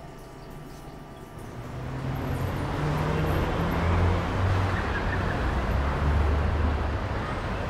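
Road traffic noise swelling in about two seconds in and then holding steady, with a low rumble underneath.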